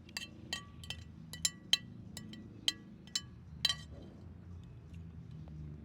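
Cutlery clinking against a dish while eating: about a dozen light, ringing clinks in the first four seconds, then they stop.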